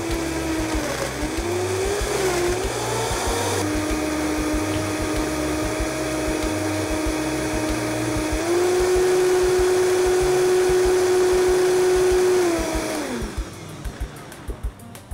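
Countertop blender running on a jar of spinach, frozen mango, ice and water, blending a green smoothie. Its motor pitch dips and wavers twice in the first three seconds as the ice breaks up, then holds steady, steps up to a higher, louder speed about eight seconds in, and winds down to a stop about thirteen seconds in.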